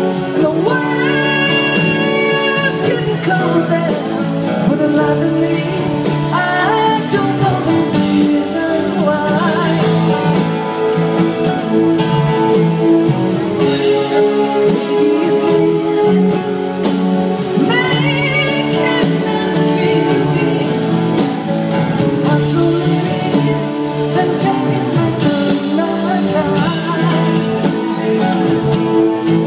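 Live rock band playing: acoustic and electric guitars and drums, with a singing voice coming and going over the band.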